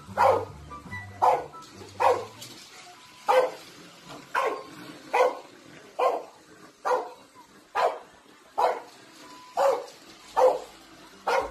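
A French bulldog barking over and over, short sharp barks at an even pace of about one a second.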